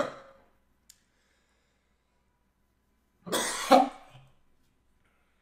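A person coughs harshly once, about three seconds in, from the burn of Tabasco hot sauce in the throat.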